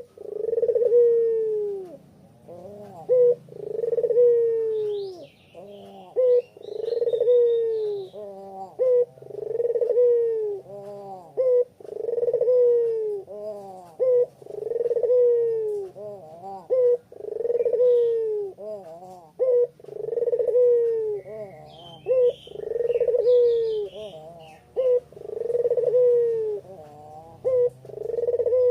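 A puter pelung (collared dove) cooing in full song: about eleven long, falling coos, one every two and a half to three seconds, with short clipped notes between them. Small birds chirp faintly twice in the background.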